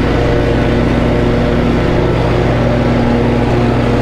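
Snapper Pro walk-behind mower's engine running at a steady speed while mowing, an even engine hum with no change in pitch.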